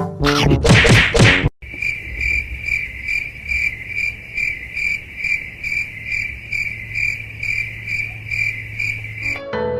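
Steady, rhythmic high-pitched insect chirping, about two to three chirps a second, with a low hum beneath. It follows a loud, noisy burst in the first second and a half.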